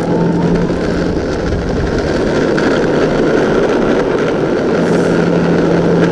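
Electric skateboard riding over pavement: a steady, loud rush of wheel and road noise.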